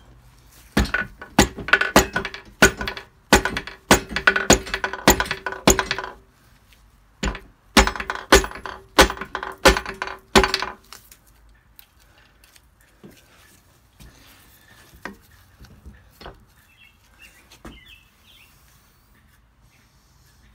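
Rubber mallet knocking on a VW Beetle's air-cooled flat-four engine case to drive the two case halves apart, with a metallic ring. Two runs of quick blows, about three a second, then a few light taps in the second half.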